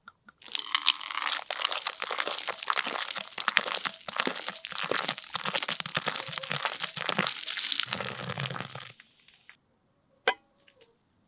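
Non-alcoholic beer poured from a bottle into an enamel pot, splashing and fizzing as the foam builds and overflows, for about eight and a half seconds. About ten seconds in, the pot's enamel lid gives a single clink against the pot.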